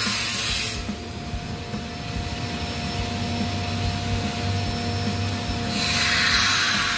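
Utility knife blade scraping through a sheet of vinyl roll flooring as it is drawn along the cut. The rasping hiss is loud in the first second, quieter after that, and loud again from about six seconds in.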